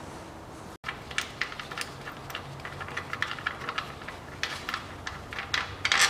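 Light, irregular metallic clicks and taps, several a second, as a hydraulic transmission jack is set up under a manual gearbox to support it. A low steady hum sits underneath.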